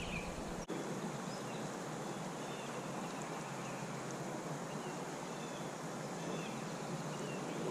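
Steady rush of flowing creek water, with a few faint bird chirps over it.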